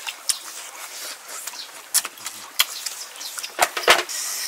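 Scattered sharp clicks and smacks of someone eating cooked river snails from a ceramic bowl, picking the meat out of the shells. The loudest two clicks come close together near the end.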